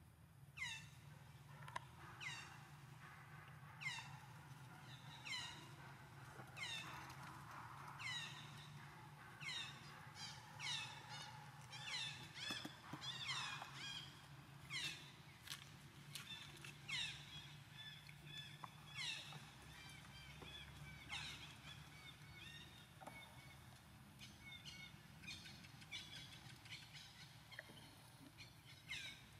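An animal's high call sweeping sharply downward in pitch, repeated about every one and a half seconds, giving way after about twenty seconds to shorter, more varied chirps.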